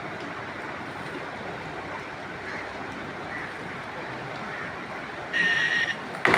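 Steady rushing noise, like wind over the microphone. Near the end comes a short, loud, high-pitched whistle-like tone lasting about half a second, then a sharp knock.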